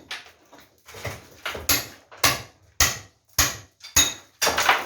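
Hammer blows struck in a steady rhythm, about two a second, some with a short metallic ring.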